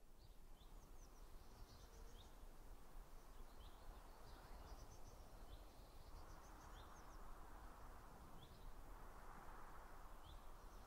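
Faint outdoor ambience with small birds chirping: short, high chirps every second or so over a soft rushing hiss and a low rumble.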